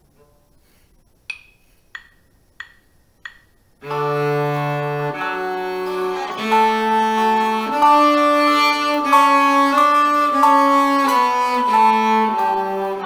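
Four short ticks about two-thirds of a second apart, then a cello playing a slow line of held bowed notes that step up and down, swelling louder in the middle and easing off near the end: a crescendo-and-decrescendo dynamics exercise.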